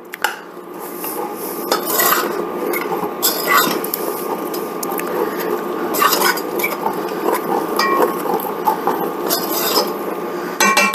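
Vegetable oil heating and bubbling steadily in a pan over browned chicken fond, with a few sharp clinks of a utensil against the pan.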